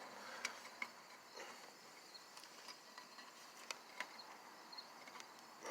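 Faint, scattered light clicks and taps of hands and tools working a scooter's CVT cover loose, about a dozen of them spread irregularly, over faint steady high-pitched background tones.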